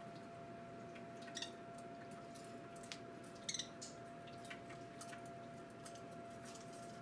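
Small electric bird-bath water fountain running: a faint steady hum with trickling water. Parakeets give two short chirps, about one and a half and three and a half seconds in, among scattered light clicks.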